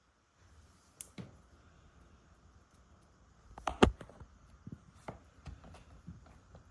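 Scattered light knocks and taps: one about a second in, a louder cluster a little before four seconds in, then a few softer taps.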